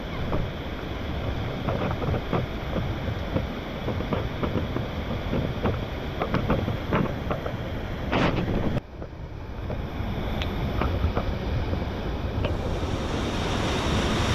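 Rushing floodwater after heavy rain, with wind buffeting the microphone and scattered short knocks. The sound drops suddenly about nine seconds in, then the rush of water builds, louder and hissier, toward the end.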